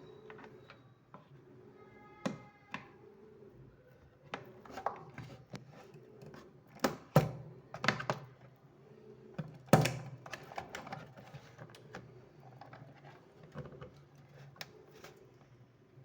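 Scattered clicks and knocks of wire connectors and parts being handled and pulled off a kitchen chimney's control board, the loudest knocks about seven and ten seconds in.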